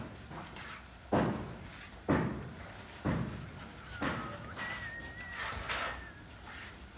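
Four heavy knocks about a second apart, from building work, each ringing out briefly, followed by weaker knocks. A faint thin whistle runs through the second half.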